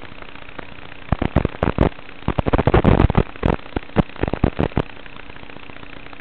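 Steady static hiss from an analog FPV video link, with a faint steady tone, broken from about a second in by some four seconds of loud, irregular crackling pops.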